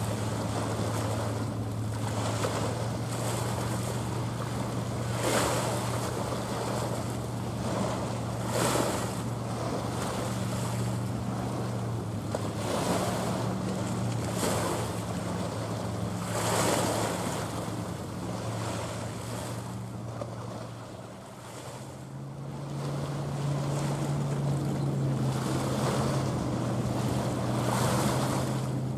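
Small waves washing onto the shore, swelling every couple of seconds, over a steady low engine drone from passing ships, with some wind on the microphone. The drone shifts a little higher about three quarters of the way through.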